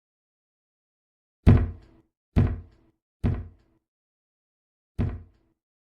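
Four heavy knocks, unevenly spaced, each leaving a short ringing tone as it dies away.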